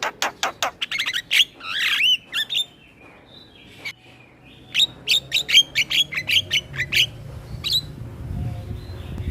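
Male Javan myna (jalak kebo) singing: fast runs of sharp, repeated notes, about seven a second, broken by a brief warbled phrase and a pause of over a second before a second run. A low rumble rises near the end.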